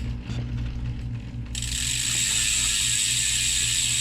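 Bicycle drivetrain turned by hand on a repair stand: the rear hub's freewheel ratchets and the chain runs, with faint clicks at first and then steady fast ticking that starts abruptly about a second and a half in.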